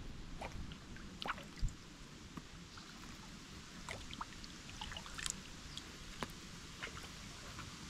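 Kayak paddle dipping into calm water: soft splashes and scattered drips and trickles from the blade. A single dull thump about one and a half seconds in.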